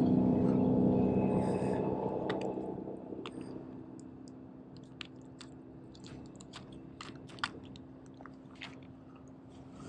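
A hum left over from the title music fades away over the first few seconds. Small clicks and rattles of a plastic tackle box being handled follow, as its compartments are searched for a new sinker.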